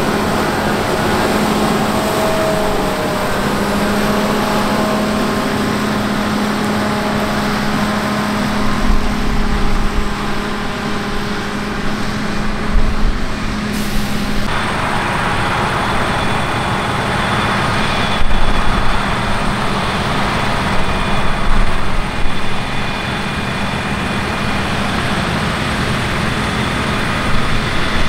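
Heavy farm machinery running steadily, the engines of combine harvesters and a tractor at work in a rapeseed harvest. The sound shifts abruptly about halfway through, and there are a few louder knocks and surges.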